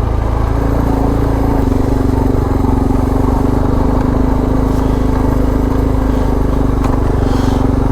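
Suzuki DR650's single-cylinder four-stroke engine running steadily while the motorcycle is ridden along a dirt road, the engine note holding at one pitch over a low rumble.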